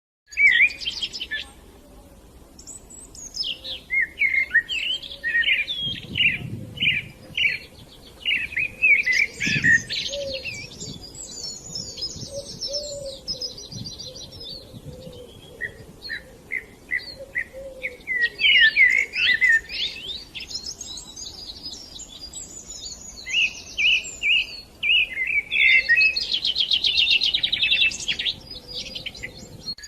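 Several songbirds singing and calling at once, their songs overlapping: quick repeated chirps, whistled phrases and fast trills, nearly without a break.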